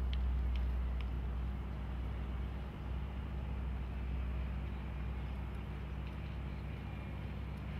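Steady low hum of the arena's background noise, with a few faint clicks in the first second.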